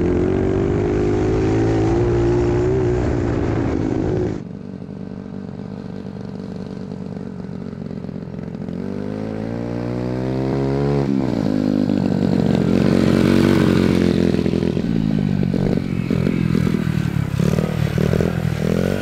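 Honda Z50 mini bike's small single-cylinder four-stroke engine running under way. It holds steady at first, then winds up in pitch, drops off sharply about eleven seconds in, and grows louder as the bike comes close. The riders suspect it is running lean.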